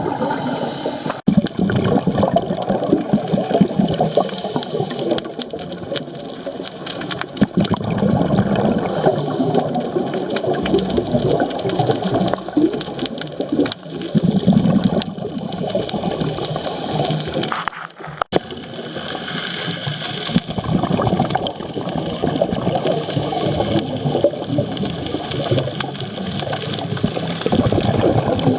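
Underwater: a scuba diver's exhaled bubbles gurgling and rushing past the camera, swelling and easing every few seconds with the breathing.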